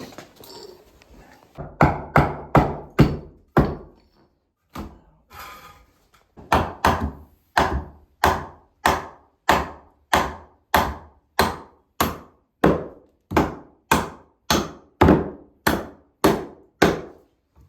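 Hammer blows on wood, repeated: a short quick run, a pause with a few lighter knocks, then a long steady run at about two blows a second. The work is knocking the nails out of a rotted wooden bottom plate.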